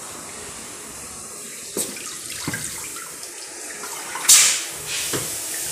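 Water sloshing and splashing in a tank as a vehicle radiator is held under for an immersion leak test, with a few small splashes and then a loud gush of pouring water about four seconds in as the radiator is lifted out.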